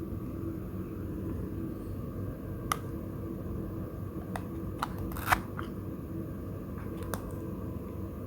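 Five or so sharp clicks or taps, scattered over a steady low background noise, the loudest about five seconds in.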